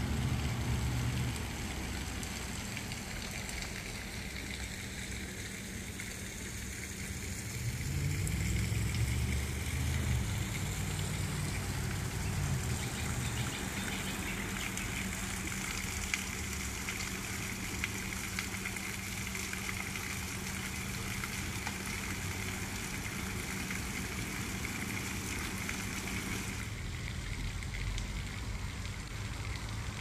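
Outdoor ambience: a steady low rumble that swells about eight seconds in and eases off by thirteen, over a steady hiss that changes abruptly a few seconds before the end.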